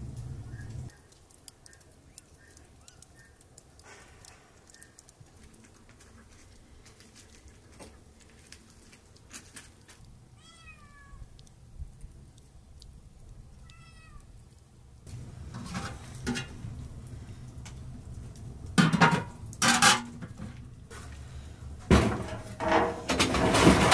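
An animal calling: two short pitched cries about ten and fourteen seconds in, then louder, busier sounds toward the end.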